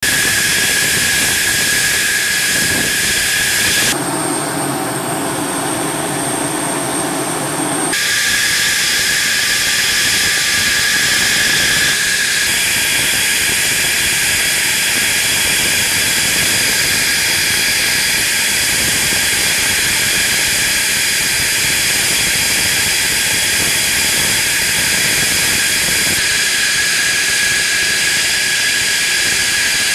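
F-16 fighter jet's engine running on the ground: a loud, steady jet hiss with a high whine on top. The tone changes abruptly a few times, about 4, 8 and 12 seconds in.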